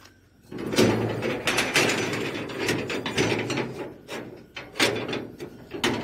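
Metal gate being moved, a continuous grinding rattle with many clanks and knocks, starting about half a second in.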